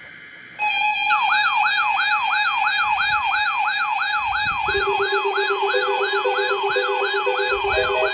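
Weather radio warning alarm during a NOAA tone alert test. A steady alarm tone starts about half a second in, and a siren-like falling sweep soon joins it, repeating about three to four times a second. From about halfway a lower steady tone and an on-off beeping are added on top.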